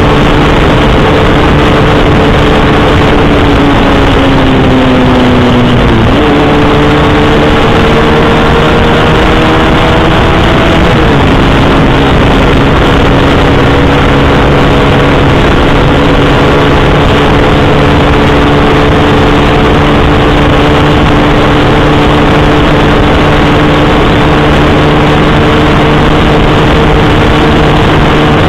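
Motorcycle engine running on the road under a loud, steady rush of wind and road noise. Its pitch sags, jumps up with a downshift about six seconds in, climbs, then drops with an upshift about eleven seconds in and holds steady.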